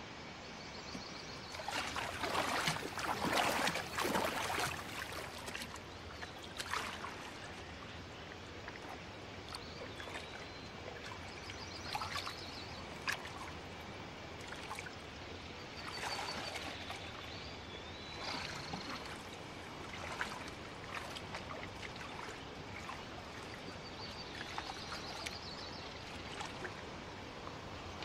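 Lake water splashing and lapping as a person wades in and swims, with a louder stretch of splashing a few seconds in.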